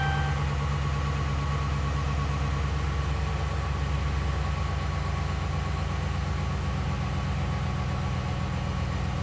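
Dodge Ram pickup truck engine idling steadily. A dashboard chime tone cuts off in the first half-second.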